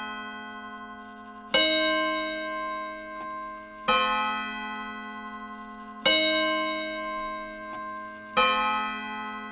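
An old clock's gong striking the hour: four strikes about two and a quarter seconds apart, each ringing out and slowly dying away, with the clock mechanism ticking faintly underneath.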